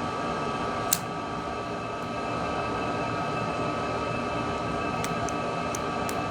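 Steady fan-like hum with a faint whine, with one sharp click about a second in and a few lighter clicks near the end, from small tools and parts being handled while a phone is taken apart.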